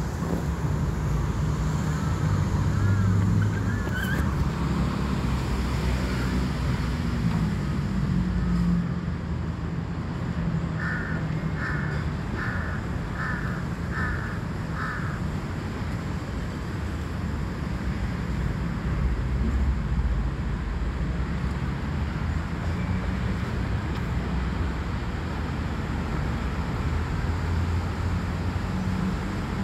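Steady low rumble of distant city traffic, with a bird calling six times in a row, a little over half a second apart, about halfway through, and a few faint chirps near the start.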